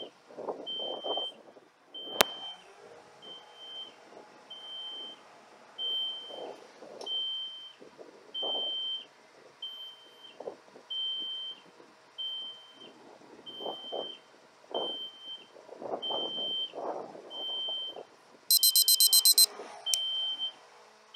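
Palfinger truck-mounted loader crane's load warning beeping, a short high beep about once a second, as the crane works at about 98% of its capacity. Near the end a louder, shriller rapid beeping sounds for about a second; irregular lower clunks and a sharp click about two seconds in sit beneath.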